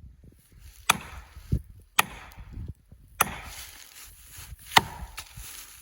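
Sharp blows driving a felling wedge into the cut of a large red oak, four strikes in all, spaced about a second or more apart.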